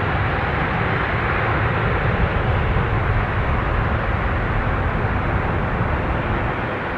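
Jet airliner engines giving a steady, loud rumble that eases slightly toward the end.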